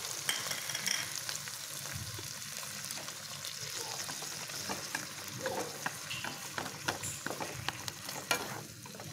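Pigeon offal sizzling steadily in a frying pan with a little added water, stirred with wooden chopsticks; many short clicks and pops come through the sizzle, more of them near the end.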